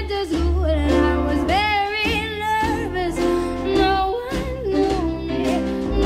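A song played back through Fluance powered bookshelf speakers: a singing voice over guitar with a steady bass line.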